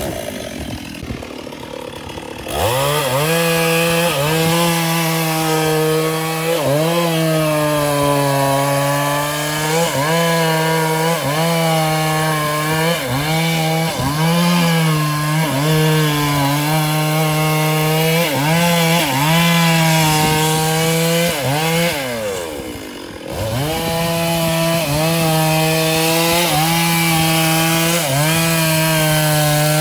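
Stihl two-stroke chainsaw ticking over for a couple of seconds, then opened up to full throttle and cutting into a mahogany trunk, the engine note dipping and recovering again and again as the chain bites. About 22 seconds in it falls back toward idle for about a second, then revs up and cuts again.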